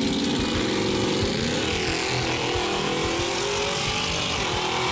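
Nitrous-equipped Fox-body Ford Mustang's 302 V8 accelerating hard at full throttle down the drag strip.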